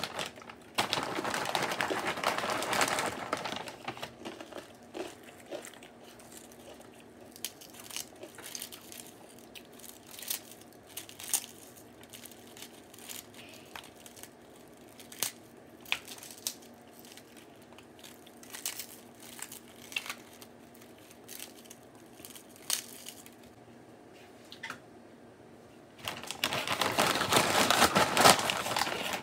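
A packaging bag crinkling and rustling as it is handled, loudest for a couple of seconds near the start and again near the end, with scattered small crackles and clicks in between.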